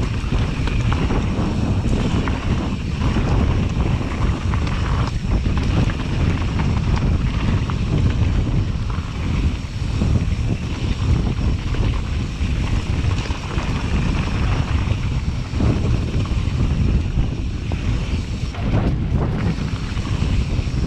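Wind rushing over the camera's microphone at speed, mixed with the rumble of a Yeti SB150 mountain bike's tyres and frame on a rough dirt trail during a fast downhill run.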